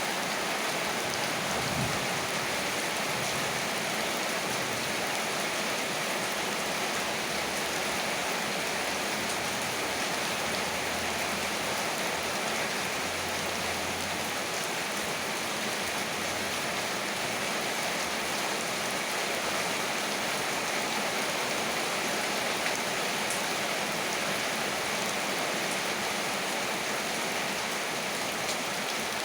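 Heavy rain falling steadily, a constant even hiss of rain on surfaces.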